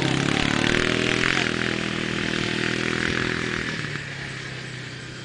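2006 Suzuki Eiger 400 ATV's single-cylinder four-stroke engine accelerating away, its pitch rising over the first second, then holding steady and fading as the quad drives off across the field. A hiss of the tyres scrabbling on the dry ground comes with the pull-away.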